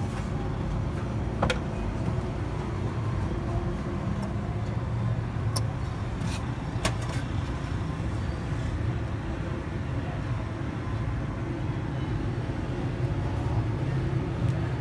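Steady low rumble of road traffic, with a few sharp clicks of a steel spoon against the griddle.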